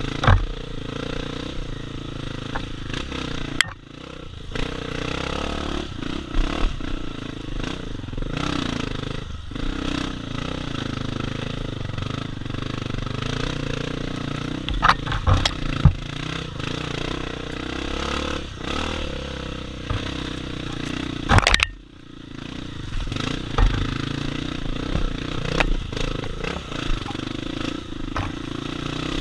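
Honda CRF250F dirt bike's single-cylinder four-stroke engine running under varying throttle on a trail, with knocks and clatter from the bike over rough ground. The engine note drops off sharply twice, once a little before 4 seconds and again near 22 seconds, then picks up again.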